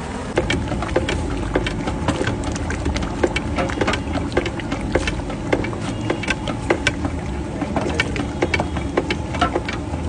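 Metal cooking utensils clicking and knocking against a large aluminium pot, several sharp clicks a second at irregular intervals, over a steady low rumble.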